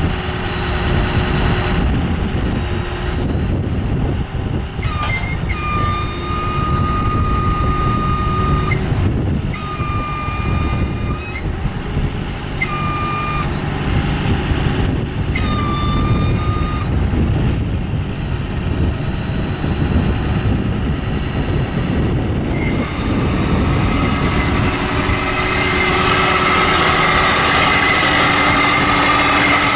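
A Ford 6.0L V8 turbo diesel runs steadily to drive the hydraulics while the Palfinger PSC3200 crane is worked. A hydraulic whine comes and goes in four spells of one to four seconds as the boom is moved. About three-quarters of the way through, a steadier, louder whine sets in and holds.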